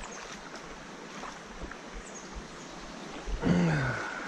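Mountain trout stream flowing steadily, with a few small ticks. About three and a half seconds in comes the loudest sound, a man's short grunt that falls in pitch.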